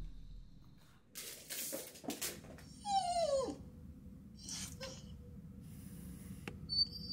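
A dog whining once, a high cry that falls steeply in pitch, a stressed whine at a pigeon on the balcony. A few soft knocks come before it and a brief high squeak near the end.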